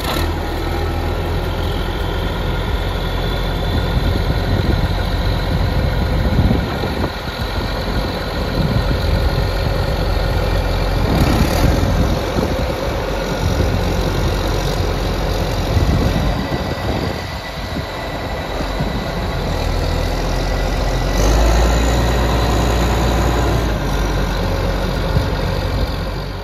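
Case IH Magnum 275 tractor's diesel engine running steadily at idle just after being started, a deep rumble that swells a little in places.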